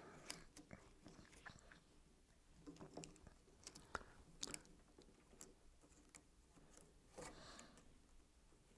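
Faint handling sounds of a plastic cable tie being threaded and pulled around coax cables: scattered light clicks and scrapes of plastic on the cable jackets.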